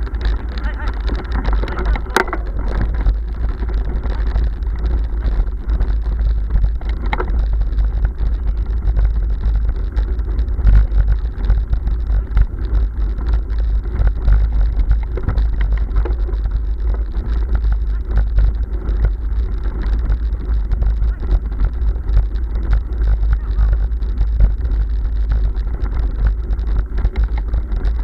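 Bicycle rattling and juddering over cobblestones, with a constant low rumble of wind and vibration on the microphone; a sharp clack about two seconds in.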